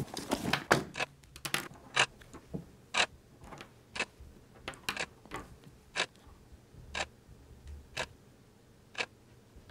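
Clock ticking steadily once a second, with a few lighter clicks and knocks of small objects being handled in the first two seconds.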